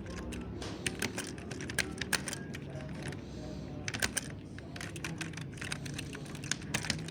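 Mechanical keyboard being typed on: irregular runs of sharp key clicks, with a brief pause about three seconds in.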